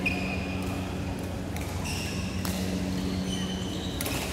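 Badminton rally: court shoes squeaking briefly on the court mat several times, with a few sharp racket-on-shuttlecock hits, over a steady low hum.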